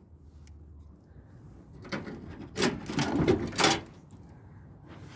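Knocks and scrapes from tumble dryer parts being handled as the machine is taken apart. They come in a cluster starting about two seconds in and lasting about two seconds, with two loudest knocks.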